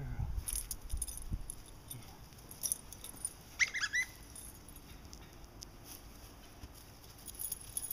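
A Redbone coonhound puppy at play: a quick run of short, rising high squeaks about halfway through, with light jingling and a few soft thumps.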